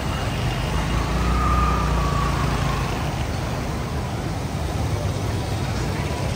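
Steady rushing noise of the Bagmati river in flood, high and muddy, mixed with road traffic. A vehicle passes about a second in, with a low rumble and a faint whine.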